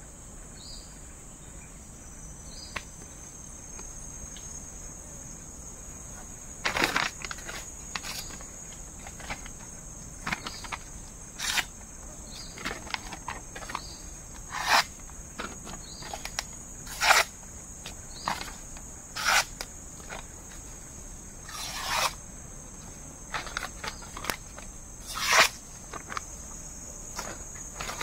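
A parang chopping into wood in about ten sharp, irregularly spaced blows, starting about seven seconds in. A steady high-pitched trill of insects runs underneath.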